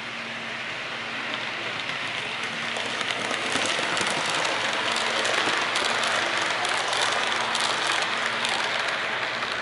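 HO-scale Athearn Amtrak P42DC locomotive and Superliner passenger cars rolling past at near full throttle: a steady rush of metal wheels on rail with small clicks over the track, growing louder as the train goes by, over a faint low hum.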